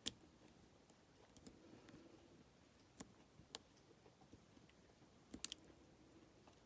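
Faint, sparse metallic clicks from a dimple lock being picked with a dimple flag pick and tensioner, about five sharp ticks spread over several seconds, two of them close together past the middle.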